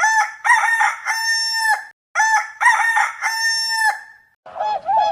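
Rooster crowing twice: two full cock-a-doodle-doo crows, each about two seconds long. Near the end a different bird's honking calls begin.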